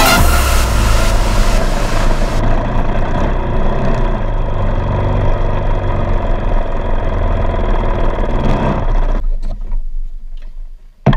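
Honda 450 dirt bike's single-cylinder four-stroke engine running at low speed, then shut off about nine seconds in. A single sharp knock near the end.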